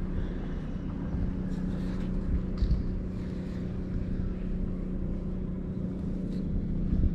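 A steady low machine hum with a constant pitch and overtones, like a motor or pump running. A few faint light clicks sound over it.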